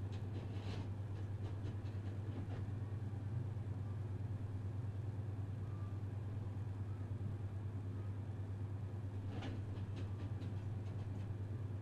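Steady low electrical hum of the studio feed, with a few faint clicks about a second in and again near the end; no music is heard.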